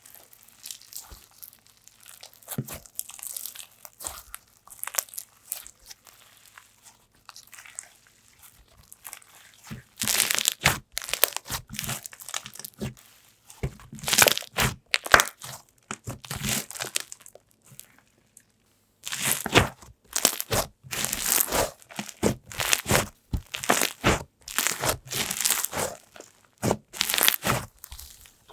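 Slime being squished and stretched by hand. Soft handling noises at first, then, about ten seconds in, repeated loud crackling, popping squishes in quick runs, with a short pause before the last run.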